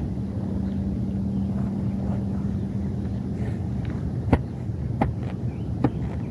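A steady low hum over a rumble, the hum dropping out about halfway through; then three sharp clicks as a weeding tool is jabbed into the lawn to lift a dandelion, the first the loudest.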